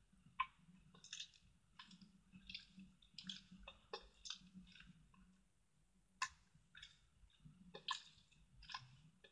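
Flarp noise putty squished and pressed with fingertips on a board: faint, irregular wet squelches and crackly clicks. The putty is soft but too wet, with a broken-up, scrambled-egg texture.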